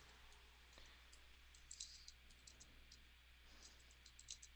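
Faint, irregular clicks of a computer mouse as lines are traced in an image editor, with a quick cluster of clicks about two seconds in, over a low steady hum.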